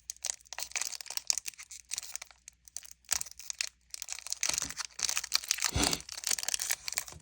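Foil booster-pack wrapper crinkling and being torn at by hand, in dense irregular crackles; the pack is hard to tear open. A low thump about six seconds in.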